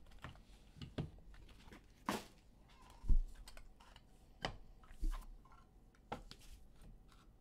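Trading cards and their cardboard box being handled: short scrapes and taps of card stock about once a second, with a couple of dull knocks on the table, the loudest about three seconds in.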